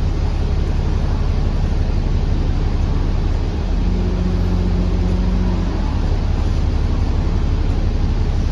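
Double-decker bus engine and running gear droning steadily, heard from on board, with a steady low hum that comes in for about two seconds midway.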